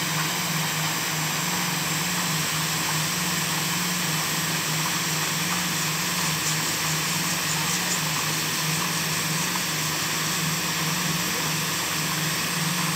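Paddlewheel aerators running on a shrimp pond: a steady motor hum with a slightly pulsing low drone over the even hiss of churned water.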